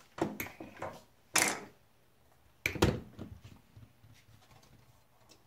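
Knocks and clatter of objects being handled and set down: a few small clicks, then two louder knocks about one and a half seconds and three seconds in, followed by fainter ticks.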